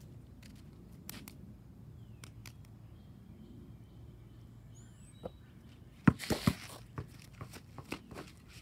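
A basketball bouncing on a concrete driveway: a cluster of loud thumps with a brief rush of noise about six seconds in, then several lighter knocks.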